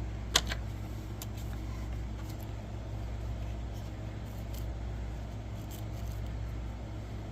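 Hoover WindTunnel upright vacuum cleaner's motor running steadily, with one sharp click about half a second in and a few fainter clicks after.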